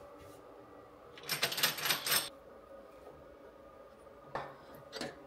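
A burst of rapid metallic clicking about a second in, then a few lighter single clicks near the end: a ratchet wrench tightening the battery cable lugs on a solar inverter's terminals.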